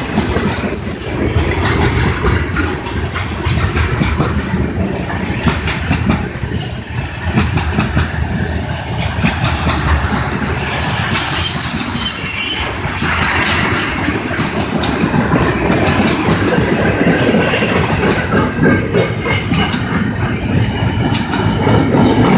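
Freight train cars (tank cars, covered hoppers and intermodal well cars) rolling steadily past, their wheels clacking over the rail joints in a continuous loud rumble.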